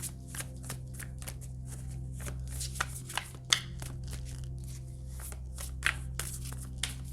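Tarot cards being handled and shuffled: a run of quick, irregular card snaps and flicks over a steady low hum.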